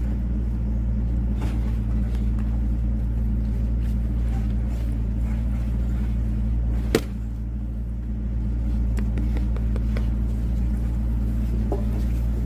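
An engine running steadily with a low drone, and one sharp knock about seven seconds in.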